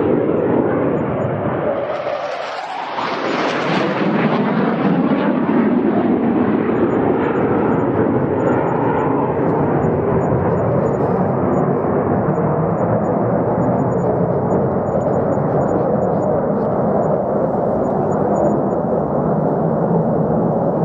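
Fighter jet engine noise, a loud continuous rush. About two seconds in the low end briefly drops away, then the sound turns brighter and hissier for a second or so before settling into a steady noise that slowly grows duller.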